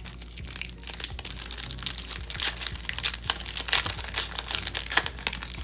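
Foil wrapper of a hockey card pack being torn open and crumpled by hand, an irregular crinkling and crackling throughout.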